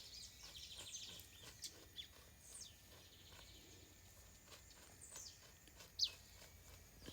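Faint birdsong: several birds chirping, with a rapid run of repeated high notes near the start and a few quick high calls sweeping downward later on.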